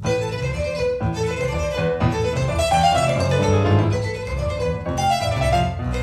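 Small tango ensemble playing a milonga live, the violin carrying the melody over piano accompaniment.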